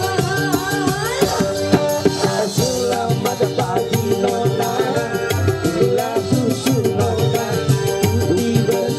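Loud live band music over a PA, with hand drums like tabla, a rattling shaker and singing into microphones.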